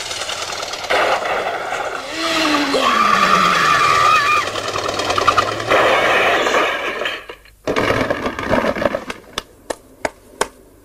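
Cartoon sound effects of a motorcycle smashing through stacked cardboard boxes into a shop: a long, loud crashing din with a high squeal partway through. After a sudden drop, boot heels click on a tiled floor, several sharp steps near the end.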